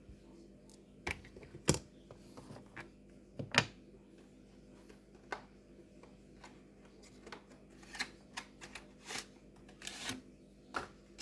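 Irregular clicks and taps of small plastic and metal parts being handled inside an opened laptop, as the hard drive comes out to be swapped for an SSD. Two sharper knocks come in the first four seconds.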